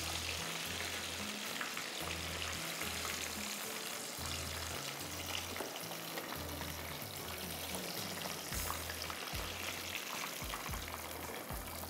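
Breaded chicken goujons deep-frying in a pan of hot oil, giving a steady sizzle, with soft background music beneath.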